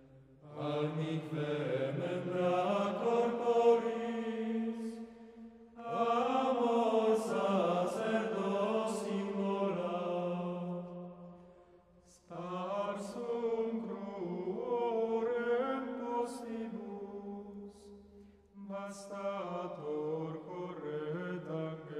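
Slow sung chant in four long phrases, each about five seconds of held and gliding notes, with brief pauses between them.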